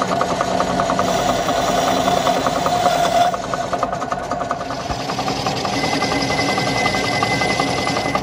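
Metal lathe running while a threading tool cuts a thread in a spinning steel part: a steady machine hum with a fast, even clatter. About three seconds in the sound shifts and drops a little in level, and a thin high whine joins later.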